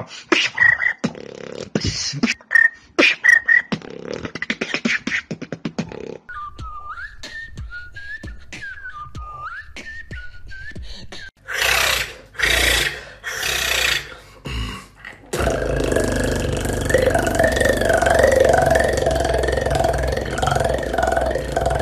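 Beatboxing special sounds: first a run of quick mouth clicks mixed with short whistled tones, then a wavering whistle. After a few short noisy bursts, a continuous one-lipped evil liproll takes over for the last six seconds, a buzzing lip roll whose pitch wavers up and down.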